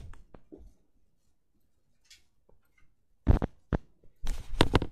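A couple of seconds of near quiet, then loud single knocks about three seconds in and a little later, and a quick cluster of knocks and bumps near the end.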